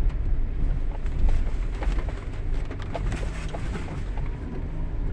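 Car engine pulling in low gear up a steep hill, a steady low drone with road rumble and scattered light ticks.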